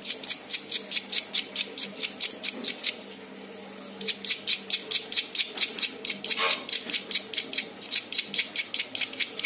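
Small blade scraping the dirty metal leads of an old resistor clean, in quick short strokes at about five a second, with a brief pause about three seconds in.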